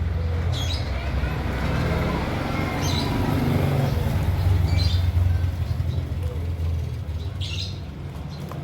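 A motor vehicle passing close by, its low engine rumble swelling to its loudest in the middle and fading near the end, with a few short high chirps from small cage birds.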